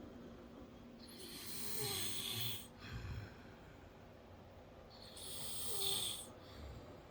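A man snoring in his sleep: two long snoring breaths about four seconds apart, the first beginning about a second in. The filmer puts it down to blocked nasal passages, congestion or perhaps swollen polyps in a nostril.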